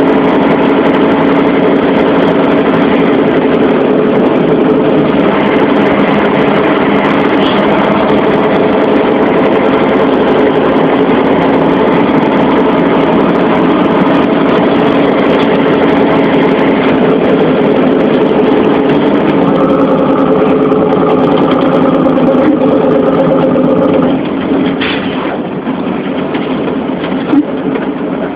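Heavy vehicle engine running steadily at a constant speed under load. About three-quarters of the way through the engine note eases off and gets quieter, and there is a single sharp knock near the end.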